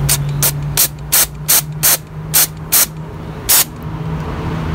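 Aerosol carb cleaner sprayed in about nine short hissing squirts, roughly three a second at first, with a longer gap before the last one, over a steady low hum.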